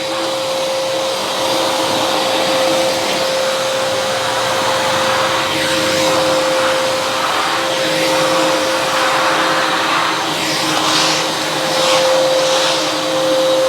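Wet-and-dry drum vacuum cleaner running steadily with a high motor whine over rushing airflow, its brush-and-wiper wet nozzle sucking spilled water off a mat. The rushing turns uneven and surging in the last few seconds.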